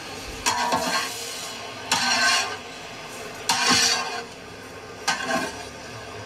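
Long ladle stirring and scraping through frying okra in a large metal cooking pot: four scraping strokes about a second and a half apart.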